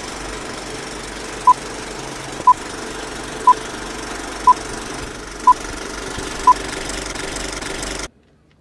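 Steady hiss and hum of an old film soundtrack, with six short beeps at the same pitch one second apart. The noise cuts off suddenly near the end.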